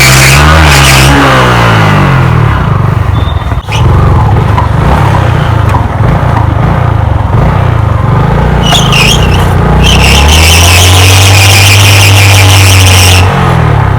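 Yamaha R15 V2's single-cylinder engine revved hard and held at high revs, its pitch dipping and climbing in the first couple of seconds. A steady hiss joins the engine for a few seconds and cuts off when the revs drop shortly before the end. This is an attempted burnout, spinning the rear tyre on a concrete road to shred it.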